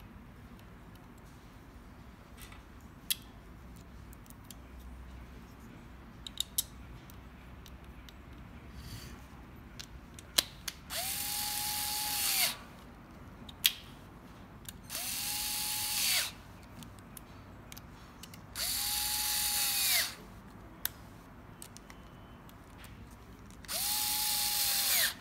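Small power driver running screws in four short bursts of about a second and a half each, its motor tone rising as it starts and falling as it stops. Light clicks of small parts and tools being handled come in the first half.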